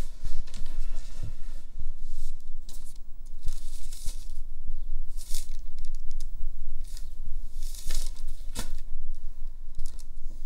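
Paper envelope being torn open and a letter pulled out and handled: several sharp bursts of paper tearing and rustling over a steady low hum.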